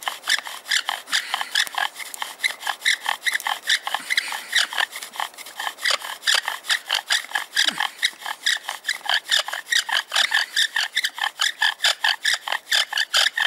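Wooden bow-drill spindle being sawed back and forth in a fireboard notch, a rapid, even squeaky rasping of wood on wood at about four or five strokes a second. The smoking spindle shows the friction is grinding out hot dust toward an ember.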